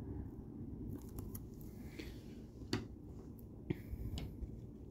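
Hard plastic graded-card slab handled in the hands, giving a few light clicks and taps, the sharpest a little past the middle and about three-quarters in, over a low steady room hum.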